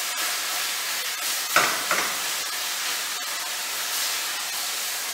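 Chopped carrots and other vegetables sizzling as they fry in a stainless steel pan, stirred with a utensil that knocks twice against the pan about a second and a half in.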